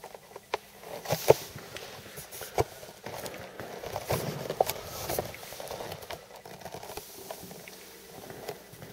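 Handling noise from a T-bar applicator worked by hand against a wooden floor: scattered clicks and knocks, two sharp ones about a second and two and a half seconds in, then a stretch of scuffing and rustling near the middle.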